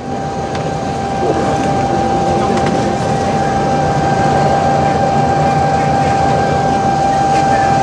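Dexter T-300 double-load commercial front-loading washer in its high-speed extract spin: a steady, high-pitched motor whine over the rush of the spinning drum.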